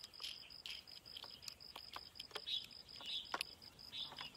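Faint, scattered small clicks and taps of a plastic fish-finder transducer and its mounting bracket being handled and fitted together. A faint steady high-pitched tone runs underneath, with a few faint chirps.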